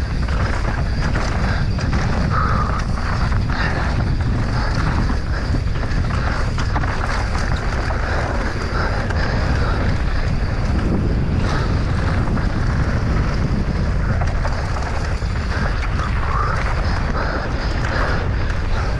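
Wind buffeting the microphone of an onboard camera on a fast mountain-bike enduro descent, a steady rushing noise. Many short knocks and rattles from the bike and tyres on the rough trail run through it.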